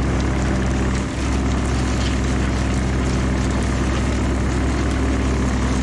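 Heavy truck diesel engine running steadily, a constant low drone with a brief dip about a second in.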